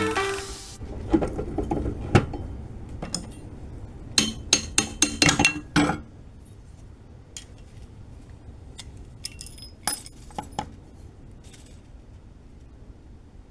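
Steel parts clinking and tapping against each other. A few single knocks come first, then a quick run of about six sharp clinks, then lighter scattered taps.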